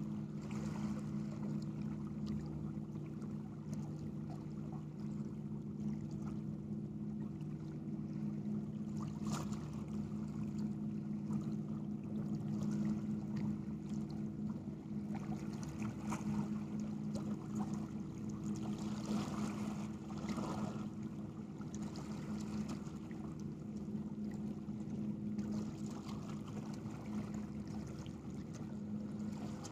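A steady low engine hum with small waves washing against shoreline rocks.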